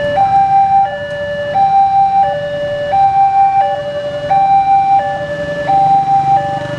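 Railway level-crossing warning alarm sounding its electronic two-tone signal, a higher and a lower tone alternating steadily about every two-thirds of a second: the crossing is closed for an approaching train. Idling motorbike and car engines run low underneath.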